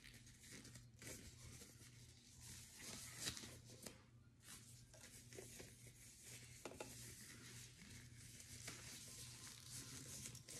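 Disposable plastic gloves rustling and crinkling faintly as they are pulled on and worked down over the fingers, in irregular strokes over a low steady hum.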